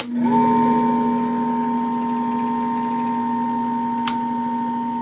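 Sears Tower movie projector's motor switched on: it spins up within a fraction of a second and settles into a steady hum, with a fast mechanical chatter underneath. A single click comes about four seconds in.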